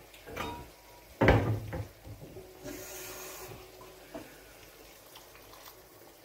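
Kitchen wall-cupboard door being handled and shut, with one loud bang about a second in and a few softer knocks around it, then a brief hiss.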